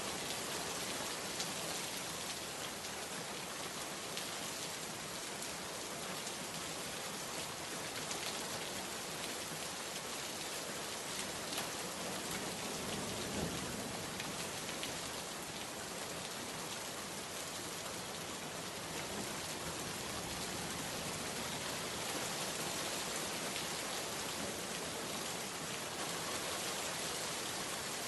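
Steady heavy rain falling on a surface, an even hiss with scattered individual drop ticks.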